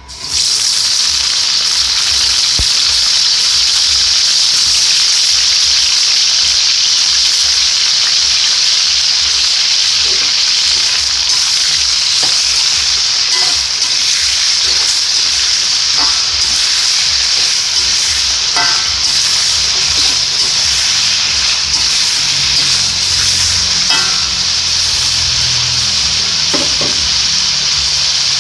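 Eggplant pieces frying in hot oil: a loud, steady sizzle that starts suddenly, with a few light clicks scattered through it.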